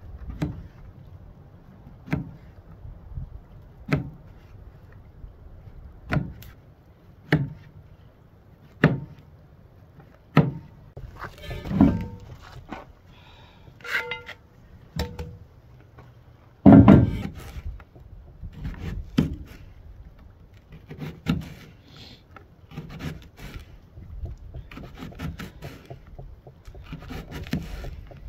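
Paring knife cutting through mushrooms and tapping the paper plate beneath, one cut every second or two. About halfway through, the slices are tipped into a cast iron skillet, with a brief ringing and then one loud knock; after that the cutting resumes, on an onion near the end.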